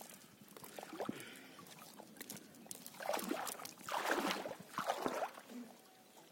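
Nylon cast net and freshly caught carp being handled on wet mud: light crackling and rustling, then three short, louder slapping, rustling bursts about three, four and five seconds in.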